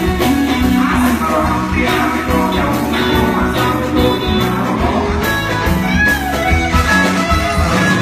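A live band playing a Batak song on amplified guitars over a steady drum-kit beat.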